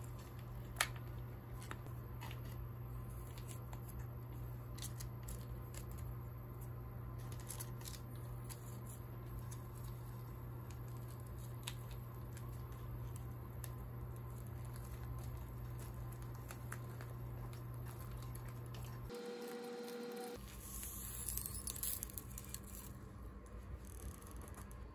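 Soft squishing and crinkling of a plastic pouch as brown sauce is squeezed out onto hamburger steaks, over a steady low hum, with one sharp click about a second in.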